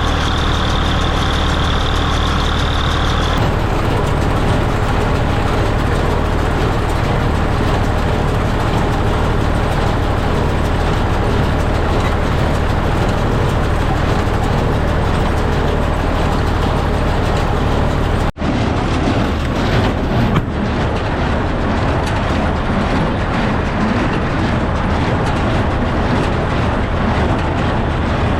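Farm tractor engine running steadily while haying, with a high steady whine that stops about three seconds in. The sound cuts out for an instant about two thirds of the way through and resumes rougher.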